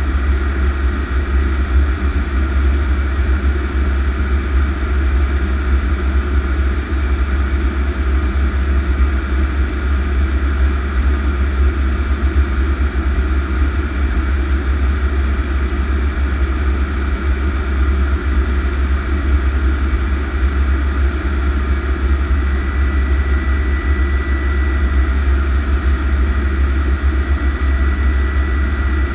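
A Lockheed T-33 Shooting Star's Allison J33 turbojet idling steadily, heard from the open cockpit with a heavy low rumble. A faint thin whine comes in over it for the last few seconds.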